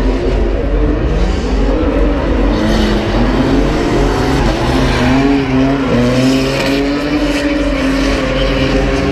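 Drift cars sliding sideways, their engines revving up and down repeatedly as they hold the slide, over tyre squeal.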